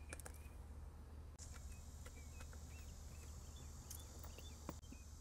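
Faint outdoor background: small birds chirping over and over, and a steady high insect buzz that comes in about a second and a half in. A few light clicks and one sharper knock near the end come from hands working on the throttle body.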